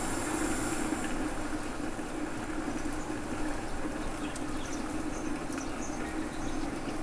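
Gas stove burner running under a lidded pot, a steady rushing flame sound; its high hiss drops away about a second in as the burner is turned down to a medium flame.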